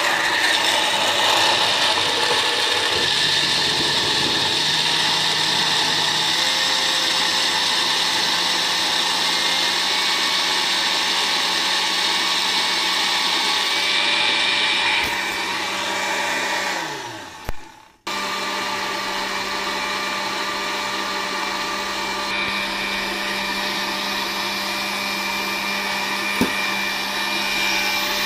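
A countertop 3-in-1 juicer-blender's motor runs steadily, blending carrots, mango and ginger into a purée. About two-thirds of the way through, it winds down with a falling pitch and stops. It then starts up again and runs on.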